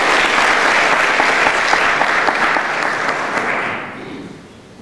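Audience applauding, then dying away near the end.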